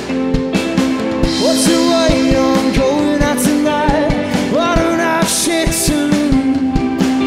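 Rock band playing live: electric guitars, bass guitar and a drum kit, with cymbal crashes about a second and a half in, near the middle and about five seconds in. Sung vocals slide in pitch over the band.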